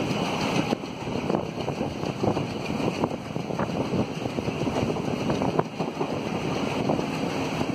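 Passenger train in motion, heard from an open coach window: wind buffeting the microphone over the steady rumble of the coaches, with irregular clicks and clatter of the wheels on the track.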